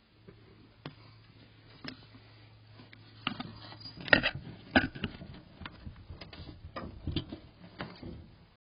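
Water dripping from a leak onto the wet subfloor: irregular sharp ticks, sparse at first and coming faster from about three seconds in, the loudest about four seconds in, over a faint steady low hum.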